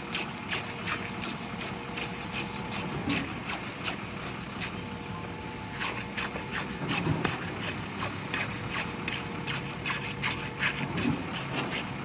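Steel tamping rod plunged again and again into fresh concrete in a steel cylinder mould, each stroke a short clink or thud, about two to three a second, with a brief pause about halfway through. This is the rodding that compacts the concrete in a test cylinder.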